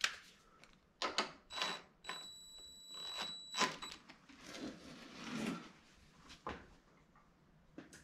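DeWalt cordless drill running in one short burst of about a second and a half, driving the bolt of a headlight bracket. Clicks and knocks of tools and parts being handled come before and after it.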